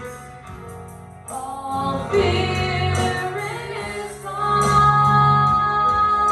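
Gospel worship song: voices singing over instrumental accompaniment. It swells about two seconds in, and a long note is held near the end.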